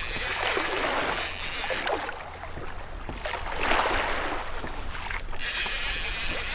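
Wind on the microphone and sea water washing against a fishing kayak's hull: a steady rushing noise that swells and eases every second or two, over a low wind rumble.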